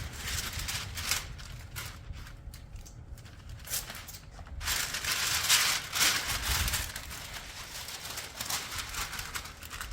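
Masking tape and masking paper being handled: irregular crinkling and rustling with scattered sharp clicks, and a longer, louder rustle from about five seconds in.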